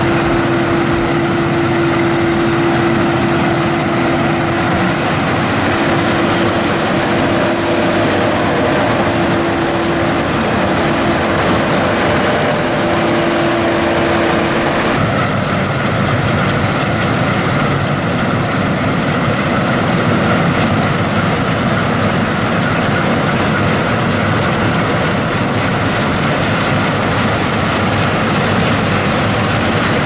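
Claas Lexion 580 combine harvester running steadily under load while cutting wheat, a constant machine drone. A steady hum in the first half stops abruptly about halfway through, where the sound changes character.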